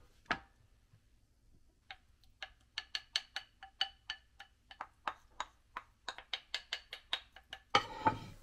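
A run of quick taps or knocks on a hard surface, about three a second, each with a short ring. The run ends in a brief, louder rustling scrape.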